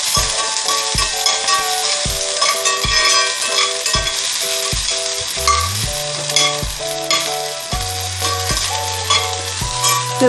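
Shallots, curry leaves and green chillies sizzling in hot oil in a cast iron skillet, stirred with a steel slotted spatula that scrapes the pan: a sambar tempering being sautéed. Background music with a steady beat and a simple melody plays over it.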